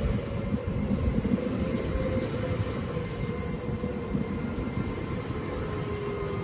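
Trenitalia Pop ETR104 electric multiple unit running past on the rails: a heavy rumble of wheels and running gear with a faint whine over it that sinks slightly in pitch, the rumble easing a little as the carriages go by.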